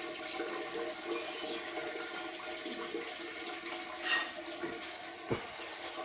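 Water running and splashing steadily, over a steady mechanical hum; a short sharp click about four seconds in and a dull thump a second later.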